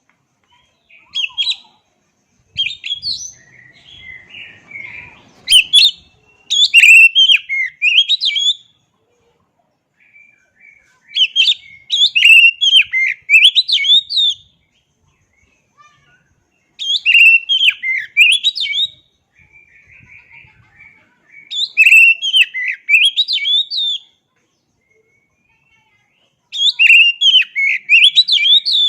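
Oriental magpie-robin (kacer) in full song: loud, varied phrases of quick whistles, trills and chirps, each one to three seconds long, repeating about every five seconds with short pauses and softer twittering between some phrases.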